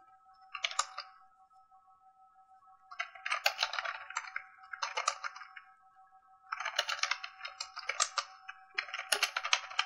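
Computer keyboard typing in bursts of quick keystrokes: a short burst about half a second in, a longer one from about three to five seconds, and another over the last three seconds, with pauses between.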